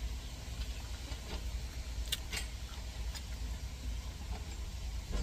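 Truck engine running, a steady low rumble heard from inside the cab, with a few faint clicks about two seconds in.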